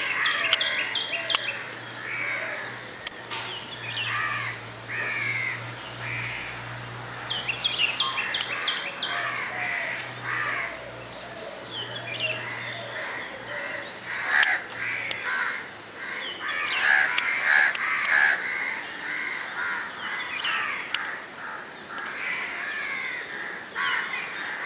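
Birds calling and chirping together at dawn, overlapping calls throughout with quick runs of short high notes about half a second in and again about eight seconds in. A low steady hum sits underneath for the first half and then fades out.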